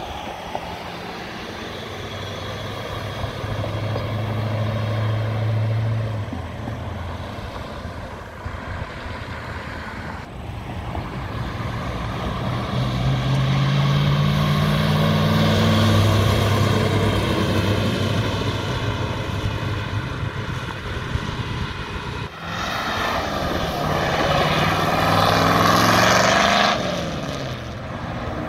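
Cars, classic cars and pickups among them, driving past one after another with engines running and accelerating away. Around the middle, one engine's pitch climbs as it speeds up.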